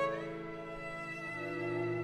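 Solo cello and string chamber ensemble playing slow, sustained bowed chords, with a new lower note entering about a second and a half in.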